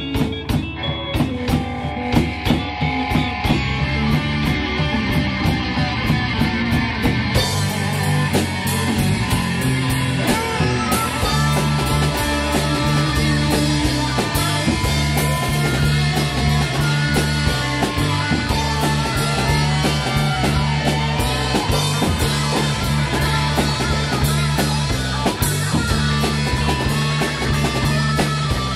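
Rock band playing an instrumental passage on electric guitar, bass guitar and drum kit, with a steady beat and held chords. About seven seconds in the playing grows denser and brighter.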